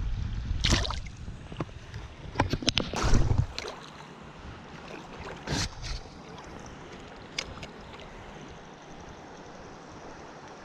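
Steady rushing of a creek with wind buffeting the microphone for the first three seconds or so, and a few short sharp clicks or splashes scattered through, the loudest about three seconds in.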